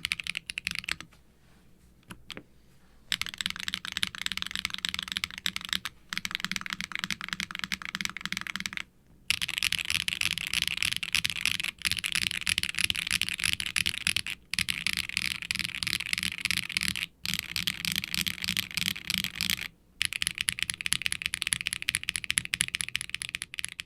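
Fast typing on a mechanical keyboard with Akko x HMX Cilantro tactile switches, factory-lubed, and double-shot ABS keycaps in a silicone case with an FR4 plate and no added dampening. The keystrokes come in quick runs broken by brief pauses, the longest about a second in.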